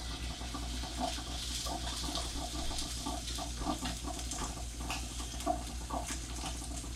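Cooked quinoa being spooned and pressed into a gutted trout's cavity: soft, irregular wet squishing over a steady hiss.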